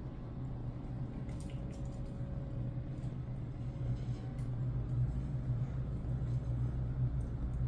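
A steady low hum, with a few faint light taps and rustles from kittens batting at a wand toy on a blanket.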